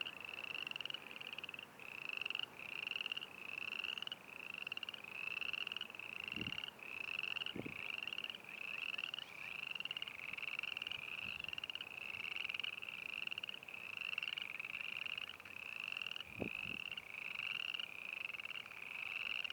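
Frogs calling in a chorus: short trilled calls, repeated about one and a half times a second and overlapping one another.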